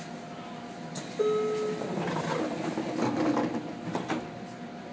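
Passenger doors of a JR Kyushu 815 series electric train closing. A short steady warning tone sounds just after a second in, then the doors slide shut with a mechanical rush and close with a clunk near the end.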